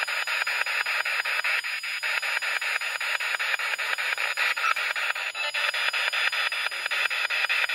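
Spirit box radio scanner sweeping through stations: a steady hiss of radio static chopped by rapid, evenly spaced clicks as it jumps from frequency to frequency.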